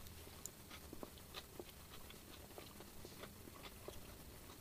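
Faint chewing of a bite of chicken burger, with soft, irregular mouth clicks.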